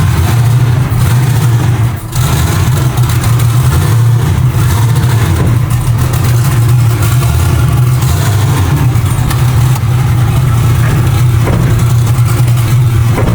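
Chevy Nova drag car's engine running loud and steady, with a brief dip about two seconds in.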